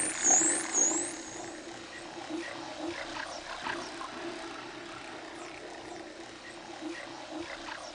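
Dolphins heard underwater: three short rising whistles in the first second, with scattered clicks and a steady low hum beneath.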